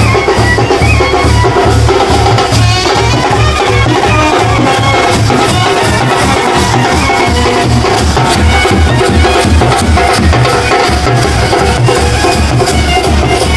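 Street marching band playing: big bass drums beat a steady rhythm under horns carrying a melody.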